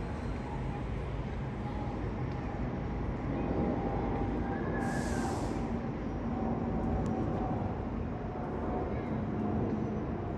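Jet engines of a twin-engine widebody airliner passing overhead: a steady low rumble, with a brief high hiss about five seconds in.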